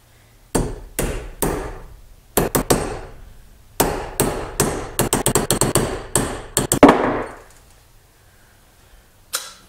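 A hammer driving a sharpened steel wedge down into a hatchet's wooden handle through the eye of the head, metal striking metal. A few separate blows, then a fast run of many blows that stops about seven seconds in.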